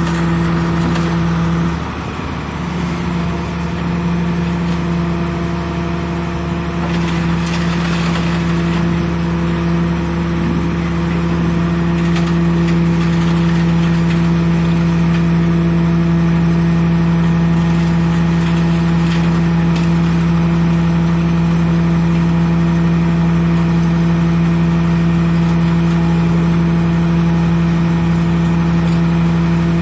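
The RB 5000 baler's power unit running steadily with a strong even hum. About two seconds in the hum briefly falters and drops in level, then picks up again and holds, a little louder from about twelve seconds on.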